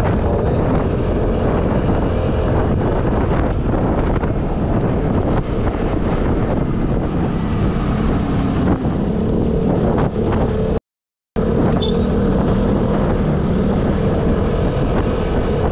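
Vespa S125 scooter's single-cylinder four-stroke engine running steadily at cruising speed, with wind rushing over the microphone. The sound drops out completely for about half a second about two-thirds of the way through.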